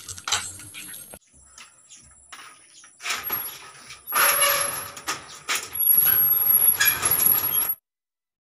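Folding steel accordion security gate being unlocked and pushed open, its metal slats rattling and scraping in three loud stretches with sharp clicks, starting about three seconds in. The sound cuts off suddenly near the end.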